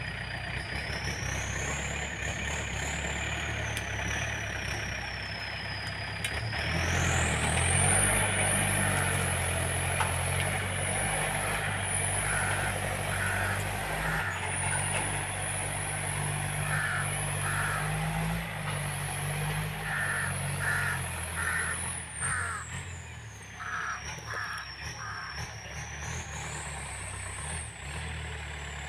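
Yanmar 514T diesel tractor running under load as it tills wet soil with a rotary tiller, the engine louder from about seven seconds in. A high whine rises and falls in pitch over the engine, and a few short groups of chirps come through in the middle.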